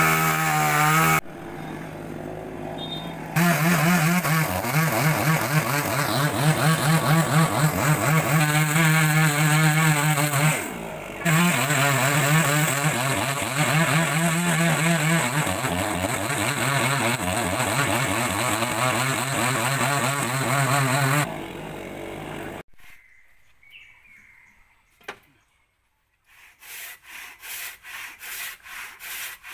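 Two-stroke chainsaw running at high revs, its pitch rising and dipping as it cuts, then shutting off about three-quarters of the way through. Near the end a hand saw starts, with quick, even back-and-forth strokes through wood.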